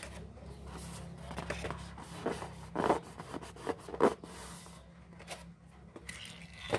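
Handling of a balloon: rubbing and scraping strokes, with two sharper squeaks or squelches about three and four seconds in.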